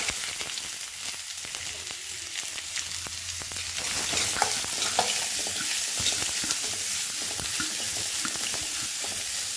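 Chopped onions sizzling as they hit hot coconut oil in a metal wok, a steady frying hiss that swells a little about four seconds in. A metal spatula clicks and scrapes against the pan as the onions are stirred.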